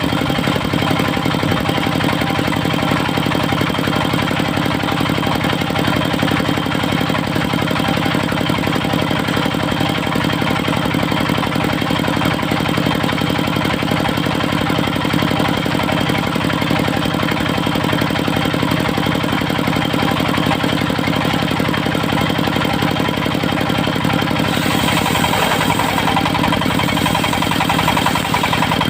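Engine of a portable circular-saw sawmill running steadily. About 24 seconds in, the sound changes, with a higher hiss added and the engine note shifting, as the load changes.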